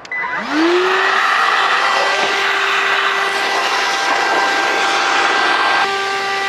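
Stanley FatMax cordless wet/dry vacuum run as an air blower: its motor spins up with a rising whine, then runs at a steady high pitch under a rush of blown air. It is blowing out the engine's glow plug area before the plugs are removed. About six seconds in, the air rush drops off while the motor keeps running.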